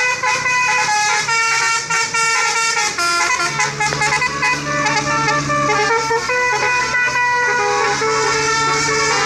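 Indonesian 'telolet' bus horns, basuri-style musical horn sets, playing a tune of quick stepping notes, with several tones sounding together. A steady low held tone joins in about three and a half seconds in.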